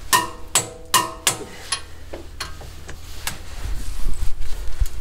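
Sharp metallic clicks with short ringing from hand tools working the front hub bolts while they are torqued. Four come in the first second and a half, a few more follow, and there is a low rumble near the end.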